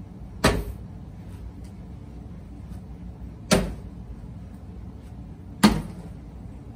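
Cloth bean bags landing with a thud on wooden cornhole boards, three times about two or three seconds apart.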